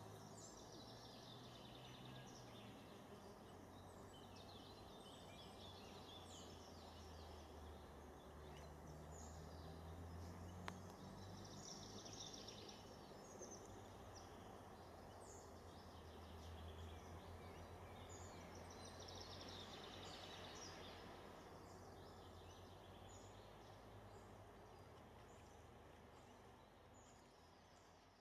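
Faint outdoor ambience: birds calling and singing intermittently, over a low steady hum. It fades out near the end.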